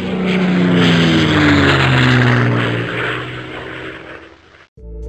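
An aircraft fly-by sound effect: the engine note glides down in pitch as it passes, swelling and then fading away. Music with plucked notes starts just before the end.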